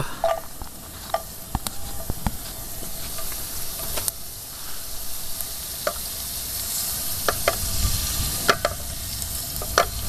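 Finely chopped garlic sizzling in hot oil in a pan, with a utensil stirring it and clicking against the pan now and then. The garlic is just starting to brown lightly.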